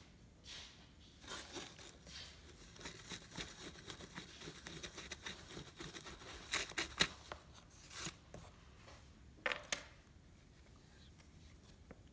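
Hay and cardboard rustling and crackling as a hand works at a cardboard nest box opening, in irregular scratchy bursts with a few louder crackles past the middle. It goes quiet for the last couple of seconds.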